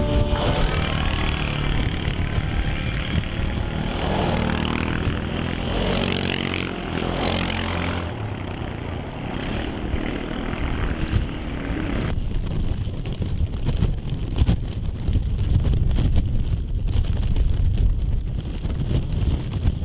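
Blizzard wind blowing hard and buffeting the microphone, a heavy uneven rumble under a rushing hiss. About two-thirds of the way through the hiss drops away suddenly, leaving mostly the low rumble.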